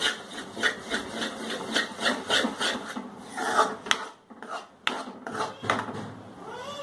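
Steel spatula scraping around a kadhai as thick besan paste roasting in ghee is stirred: quick rhythmic scraping strokes, thinning out after about three seconds into a few slower scrapes with sharp clicks of the spatula on the pan.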